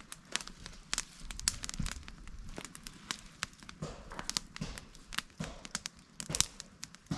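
Irregular crackles and snaps of dry leaves and small twigs, several sharp ones a second at uneven spacing.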